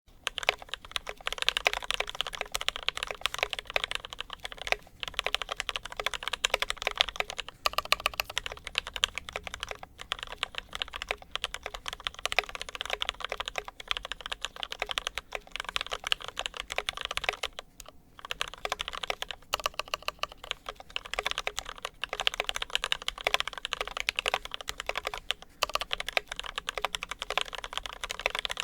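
Continuous fast typing on a custom ID80 mechanical keyboard with lubed milky Gateron Yellow linear switches and PBT Cherry-profile keycaps: a dense stream of keystroke clicks, with brief pauses about 10 and 18 seconds in.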